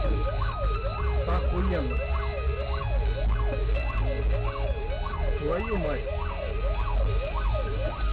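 Fire engine siren wailing up and down in quick, even sweeps, nearly twice a second, heard from inside a car over a steady low rumble of engine and road.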